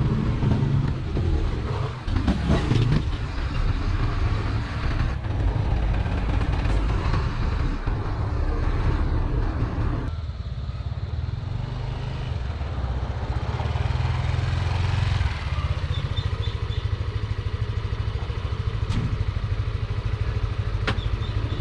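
Diesel engine of a Volvo SD100DC road roller running with a steady low rumble, its higher noise easing off about ten seconds in.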